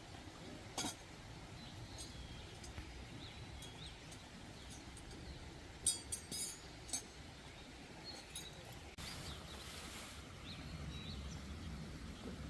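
Quiet outdoor ambience with a low, steady background hush and faint bird chirps, broken by a sharp click about a second in and a short run of clicks around the middle.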